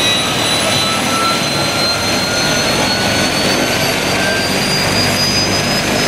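Airbus H160 twin-turbine helicopter running on the ground with its rotor turning: a loud, steady engine and rotor noise topped by a high turbine whine that rises slowly in pitch as the turbines speed up.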